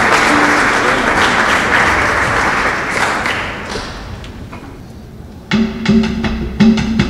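Audience applause dying away over the first four seconds. About five and a half seconds in, traditional percussion starts with a run of sharp, pitched drum strokes.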